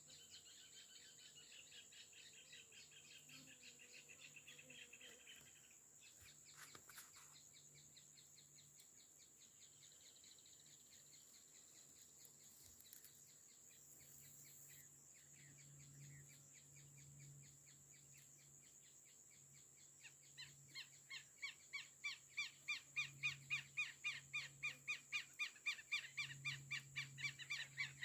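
Birds calling outdoors: a soft trill at first, then from about two-thirds of the way through a fast run of repeated chirps, several a second, that grows steadily louder. A faint, steady high insect whine runs underneath.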